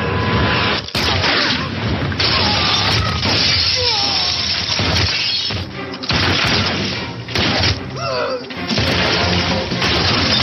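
Action-film shootout soundtrack: several sharp gunshot bangs, crashes and shattering against a loud, driving background score.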